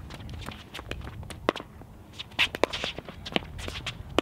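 Pickleball rally: several sharp pops of paddles striking the hollow plastic ball in quick succession, with players' shoes shuffling and scuffing on the hard court.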